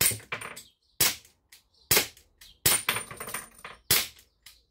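Umarex T4E HDX 68 CO2 pistol firing .68-calibre balls, five shots about a second apart, each followed by the ball striking targets and backstop. One strike near the middle rings with a short high metallic ping.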